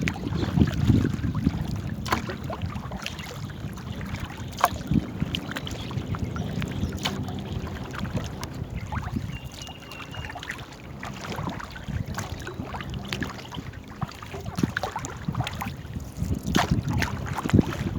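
A small rowed boat on a river: scattered knocks and clicks of paddling against the hull and water over a steady low rumble.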